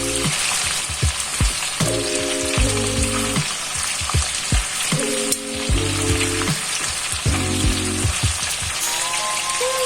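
Food frying with a steady sizzle, under background music with repeated chords and a beat.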